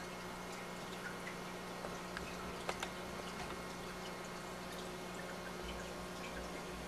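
Faint dripping and trickling water over a steady low hum, with two small clicks close together about three seconds in.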